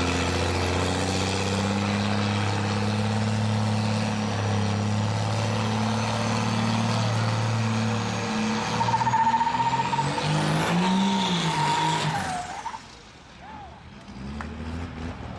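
Diesel pickup truck engine running with a steady deep note. About eight seconds in it revs hard, with a high whistle climbing alongside it, then lets off and drops away sharply.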